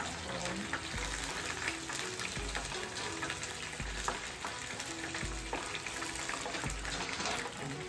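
Battered chicken pieces deep-frying in a pot of hot oil, a steady crackling sizzle, with a few sharp clicks of metal tongs as the pieces are turned and lifted out.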